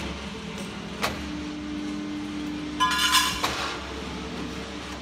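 QC11Y-12X4000 hydraulic guillotine shear cycling: a steady hum from its hydraulic power unit and a click about a second in. About three seconds in comes a loud, ringing metallic clang as the blade shears through the metal sheet.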